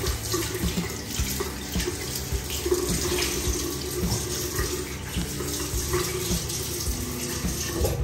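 Water running from a bathroom tap into a sink, a steady rush.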